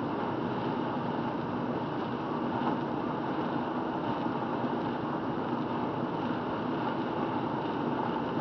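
Steady cabin noise of a car driving on a wet road: even tyre and engine noise with a faint steady hum.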